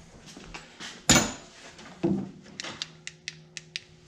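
Shop handling noise: a sharp knock about a second in, another knock with a faint lingering hum about two seconds in, then several light clicks.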